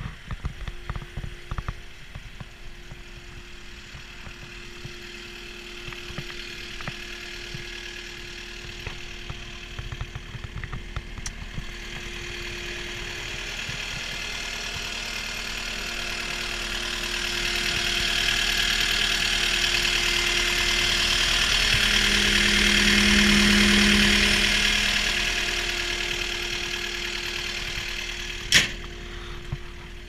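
Caterpillar 236D skid steer loader's diesel engine idling steadily with a constant whine, swelling louder for several seconds past the middle as the open engine compartment is passed, then easing off. Scattered clicks in the first ten seconds and one sharp knock near the end.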